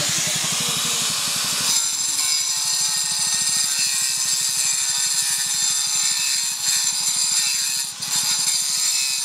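A power tool running steadily, with a fast even pulsing under a steady high whine; the low part of its sound drops away about two seconds in.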